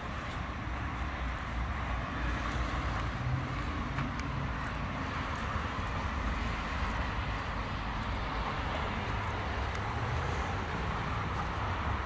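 Steady road-traffic noise from passing cars, a continuous hiss of tyres and engines with a low rumble underneath.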